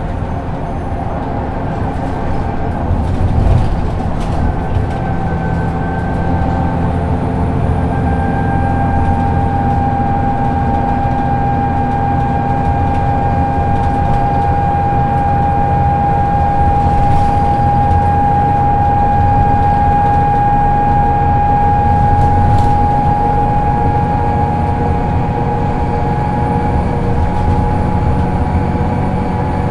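A 2004 Solaris Urbino II 18 articulated bus standing with its engine running, heard from inside: a steady low rumble under a high whine that settles into one strong, steady tone from about eight seconds in and eases near the end. A few short rattles and knocks sound now and then.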